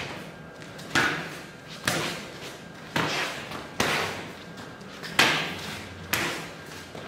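Sharp slapping smacks of punches and blocks landing on arms and padded forearm guards in a punch-defence partner drill, about one a second, each trailed by a short echo of the hall.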